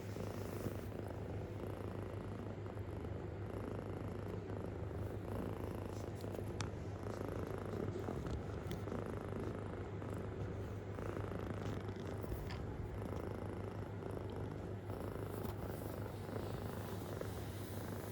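A kitten purring deeply and continuously, a steady low rumble with no break, with a few faint soft ticks over it.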